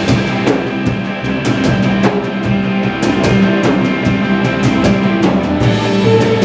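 Live rock band playing loud, with two electric guitars sustaining chords over a drum kit keeping a steady beat of cymbal and drum hits.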